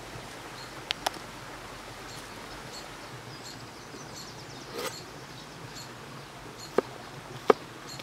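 A large chef's knife chopping spring onion bulbs on a wooden cutting board, giving two sharp knocks near the end. Two lighter clicks come about a second in, over a quiet forest background with faint birdsong.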